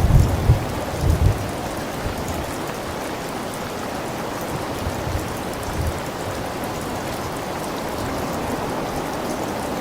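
Steady rain, with low thunder rumbles that die away in about the first second.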